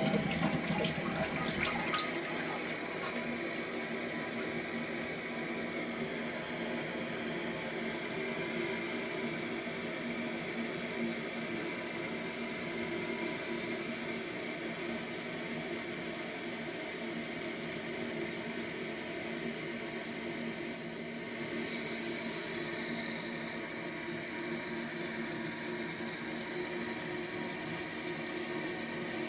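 Toilet cistern refilling through its fill valve after a flush: a steady rush of running water into the tank.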